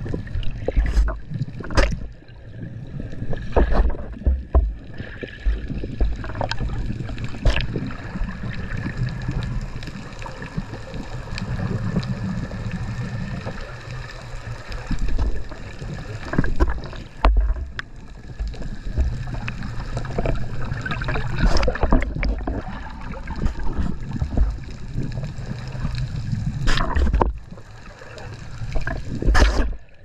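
Underwater sound on a scuba dive: bursts of bubbling and gurgling every few seconds over a steady low hum.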